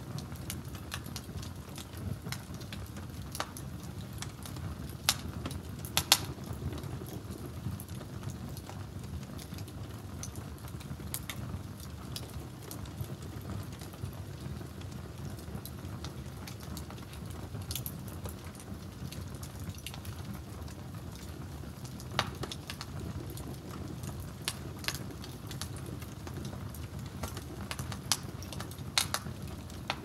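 Wood fire crackling, with sharp pops scattered through it (the loudest about five and six seconds in), over a steady low rush of flames and a pot simmering on the fire.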